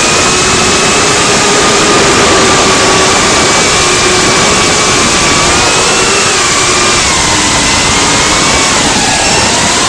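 Motors and propellers of a small FPV cinewhoop drone heard through its onboard camera's microphone: a loud whine that shifts in pitch with the throttle over a heavy rush of prop wash and wind. The pitch dips and climbs again near the end.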